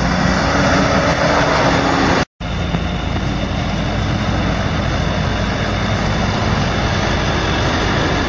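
Engine of a 4x4 pickup running as it drives up a dirt track and passes close by, under a steady rushing noise. The sound cuts out for an instant a little over two seconds in.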